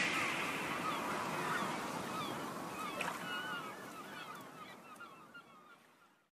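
Background music fading out to silence, with short chirp-like glides over it.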